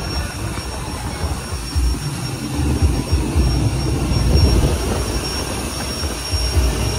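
Low rumble of a passenger boat under way, with wind gusting on the microphone.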